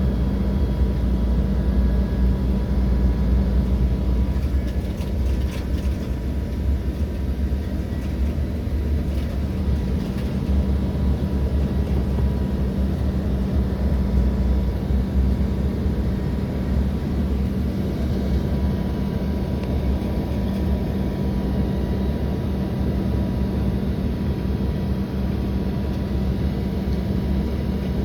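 Steady low rumble of jet aircraft engines, with wind gusting over the microphone.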